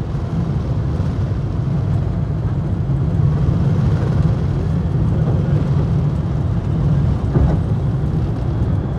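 Boeing 747-8 heard from inside the cabin: a loud, steady low rumble of engines and airflow that holds even throughout.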